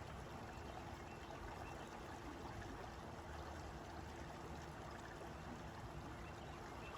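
Faint, steady sound of flowing water.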